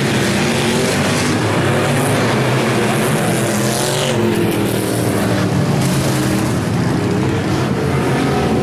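Dirt-track race cars racing around a clay oval, their engines a loud, steady drone whose pitch rises and falls as the cars pass.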